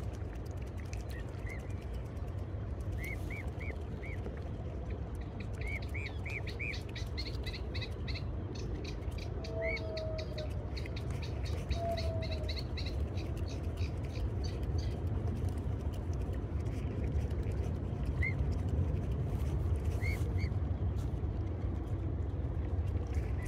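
Bird chirps: short, high, arched notes, singly and in quick runs of three to five. A fast series of higher ticking calls runs through the middle. A steady low rumble sits underneath throughout.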